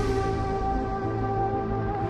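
Intro jingle music: a synthesized chord held steady after a falling glide.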